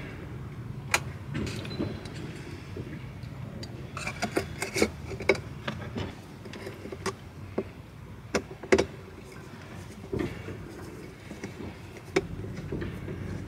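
Scattered light clicks and taps of hands and a screwdriver on a chrome cabin dome light as its cover is fitted and screwed back on, over a low steady hum.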